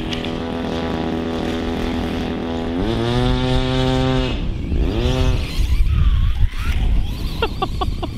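Losi Promoto-MX 1/4-scale electric RC dirt bike's brushless motor whining as it rides. The pitch holds steady, then climbs sharply about three seconds in as the throttle opens, drops, and swings up and down again.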